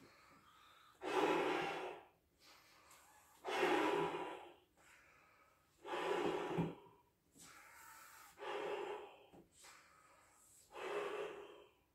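Lung-powered inflation of a clear 24-inch Belbal latex balloon: five strong blows of breath into the balloon's neck, each about a second long and coming roughly every two and a half seconds, with a quieter intake of breath between them.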